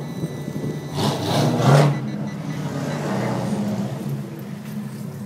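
Car engine running at a steady low pitch, with a loud rushing swell about a second in that fades over the following second.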